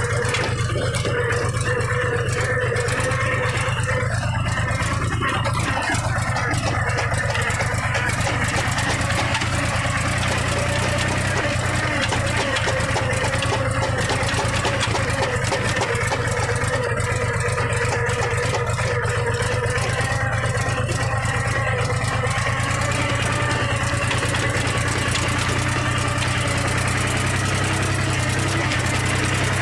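Mahindra tractor's diesel engine running steadily at an even speed, with a deep, constant drone.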